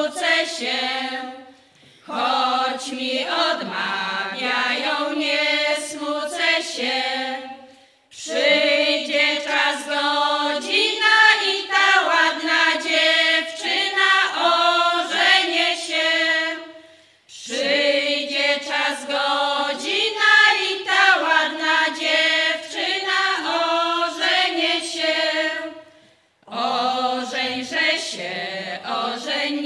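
Women's folk choir singing a Polish folk song unaccompanied, in long phrases of several seconds separated by short pauses for breath.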